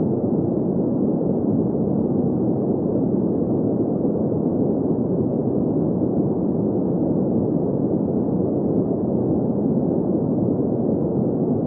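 Steady green noise for sleep: an even, unchanging hiss centred on the middle range, with little bass and almost no treble.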